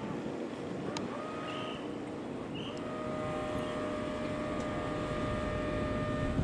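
An engine running steadily under a low rumble; about three seconds in, a steady whine with overtones joins it and holds until a sudden cut.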